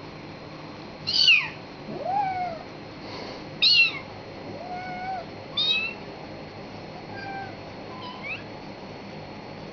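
Kitten-like mewing: four short, high-pitched mews that fall quickly in pitch, about two seconds apart, with softer, lower meows in between.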